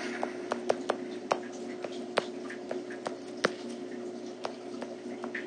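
Stylus tip tapping and scratching on a tablet's glass screen during handwriting: irregular light clicks, over a steady low hum.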